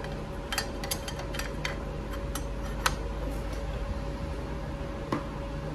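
Light metal clicks and clinks, a handful in the first three seconds and one more near the end, as a steel clutch plate is slid and seated onto a Harley-Davidson Shovelhead clutch hub. A steady hum runs underneath.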